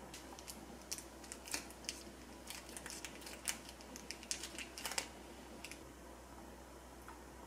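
A string of light, irregular clicks and taps from plating food: metal tongs against a ceramic plate and pan, then a plastic sauce sachet being handled. The clicks stop a little before six seconds in.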